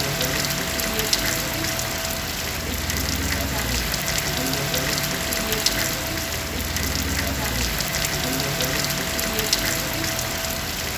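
Steady rain: a dense, even hiss with many close drops tapping. A low rumble comes and goes underneath.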